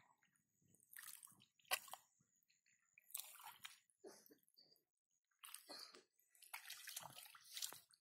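Hands groping through shallow muddy water, squelching and splashing in short, irregular bursts, with one sharp click a little under two seconds in.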